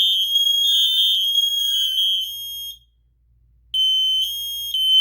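Kidde KN-COSM-IB smoke and carbon monoxide alarm sounding its shrill piezo horn between its spoken "Fire" warnings. The tone steps between two close pitches, then breaks off for about a second in the middle before starting again.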